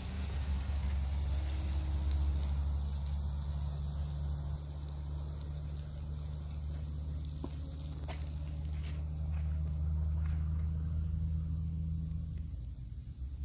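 Beef fillets sizzling on a wire grill over hot coals, with a few small crackles, over a steady low rumble that fades out near the end.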